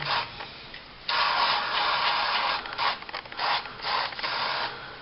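Aerosol gun-scrubber solvent spraying in hissing bursts, one long spray of about a second and a half followed by several shorter ones, flushing leftover debris out of a pistol frame.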